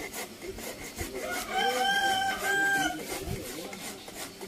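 A rooster crows once, a drawn-out call lasting about a second and a half with a short break near its end. Under it run the scraping strokes of a rasp filing a wooden keris hilt.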